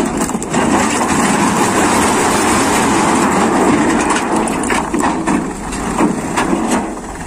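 A tipper truck's raised bed tipping out a load of rocks, which slide and tumble out in a steady rumbling clatter of many small knocks, with the truck's engine running.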